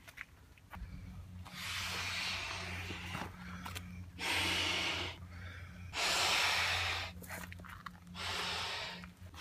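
A man inflating a small inflatable rubber boat by mouth: four long, forceful blows into its valve, about two seconds apart, the middle two the loudest. A low steady hum runs underneath.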